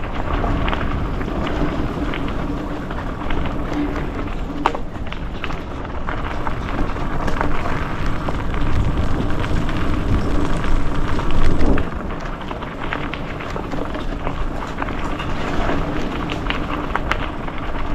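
Mountain bike rolling fast down a dirt trail: tyres running over dirt with a steady stream of clicks and rattles from the bike, and wind rumbling on the microphone.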